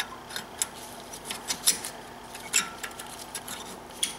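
Irregular light metallic clicks and clinks, a couple ringing briefly, as the brake caliper's spring clip is handled and fitted against the caliper on a BMW E90 front brake.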